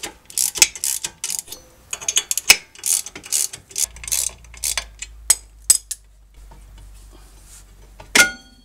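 Rapid, irregular clicks of a ratchet and metal clinks as the puller bolts are backed out of the brake drum's threaded holes. About eight seconds in, one loud ringing metallic clang as the loosened brake drum is pulled off the hub.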